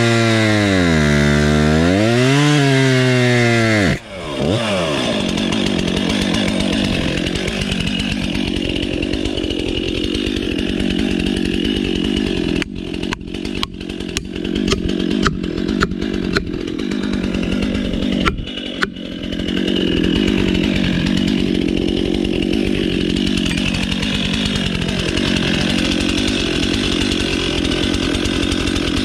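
Two-stroke chainsaw at full throttle, its pitch sagging and recovering twice as if under load in the cut, then dropping to a steady idle about four seconds in and idling on. Midway a run of sharp clicks and knocks sounds over the idle.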